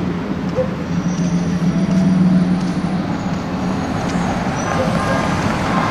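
Street traffic noise: a steady rumble of vehicles with a low engine hum that fades about halfway through.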